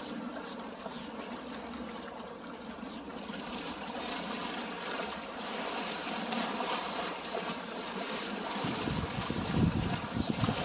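Inlet water lapping and splashing against the rocks at the shore. A low rumble of wind hitting the microphone starts near the end.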